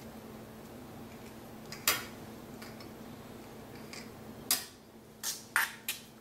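Needle-nose pliers clicking against a wire coat hanger as the wire is gripped and straightened: one sharp metallic click about two seconds in, then four quick clicks near the end.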